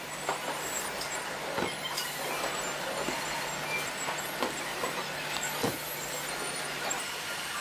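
Factory-floor ambience: a steady mechanical hum and hiss with scattered, irregular clicks and clanks.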